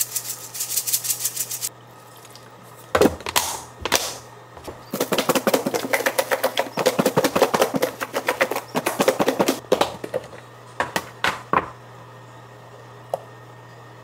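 A seasoning shaker rattles in quick taps as sesame seeds are shaken out. A snap-lock lid then clicks shut on a food container twice, and the sealed container is shaken hard for about five seconds, its seasoned slices and liquid rattling and slapping inside. A few sharp clicks follow near the end as the lid clips are undone.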